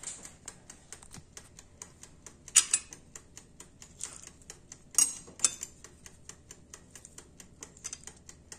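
Sharp clinks of a metal knife and fork against a glass plate, once about two and a half seconds in and twice around five seconds in, over a steady fast ticking of about five ticks a second.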